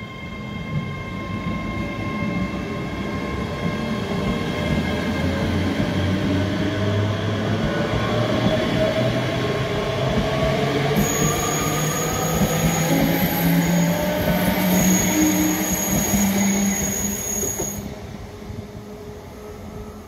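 ScotRail Class 385 electric multiple unit running past with its wheels rumbling on the rails and a whine that rises steadily in pitch as it gathers speed. A high squeal joins in for several seconds in the second half. The sound drops away a couple of seconds before the end as the last coach passes.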